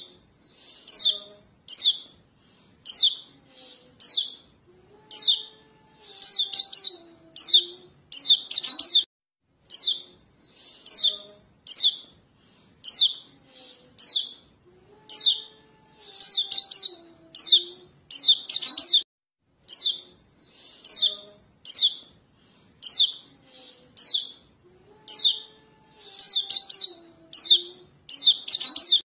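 Young white-eyes calling for their parents: short, high chirps repeated in quick, regular succession, a few a second, as used for a bird-catching lure call. A fainter, lower gliding whistle recurs about every ten seconds.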